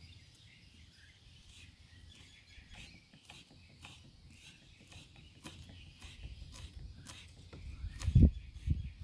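Kitchen knife chopping fresh herbs on a wooden cutting board: quick, irregular light taps of the blade on the wood, with a few heavier thumps about eight seconds in. Faint bird chirps can be heard in the background.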